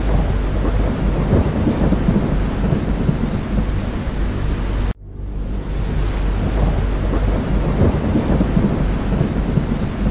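Steady rain with a deep low rumble under it, a looped ambience track. It drops out suddenly about five seconds in and fades straight back up as the loop restarts.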